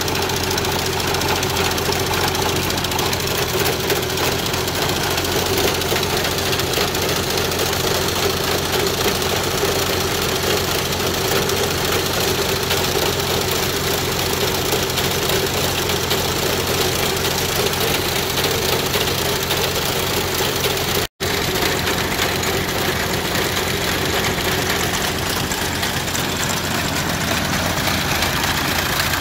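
Tractor engine running steadily, driving a New Idea 30A sickle bar mower through its PTO. The sound cuts out for an instant about two-thirds of the way through.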